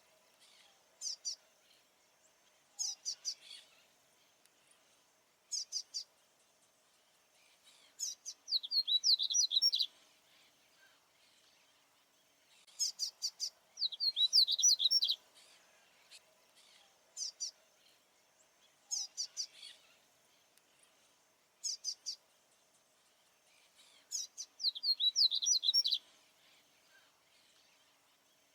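Male papa-capim baianinho seedeater singing: short, rapid phrases of high, quick notes repeated every few seconds, with two longer song bursts in the middle and short calls between them.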